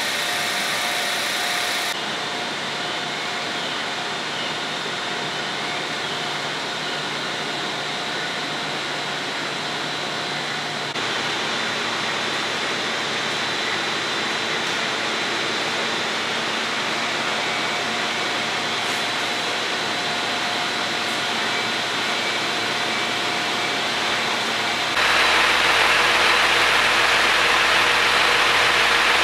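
HB-E300 hybrid diesel railcar standing at the platform with its engine running: a steady hum with a thin whine over a hiss. The sound changes abruptly in tone a few times, and is louder and hissier for the last few seconds.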